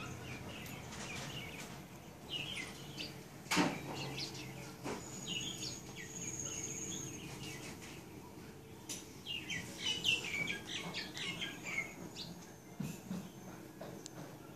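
Small birds chirping in several bursts of quick, falling high notes, with a sharp click about three and a half seconds in.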